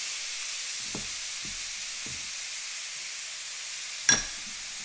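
Ribeye steaks sizzling steadily in a hot ridged griddle pan, with a few faint knocks and one sharp click about four seconds in.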